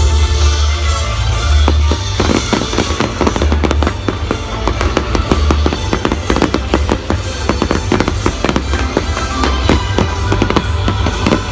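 Fireworks bursting in rapid, dense volleys of bangs and crackles from about two seconds in, over loud orchestral show music.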